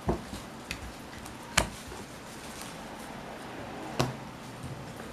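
Homemade clear glue slime being handled and moved from a plate onto a table: four short sharp knocks and clicks, the loudest about one and a half seconds in and another about four seconds in, over a steady hiss.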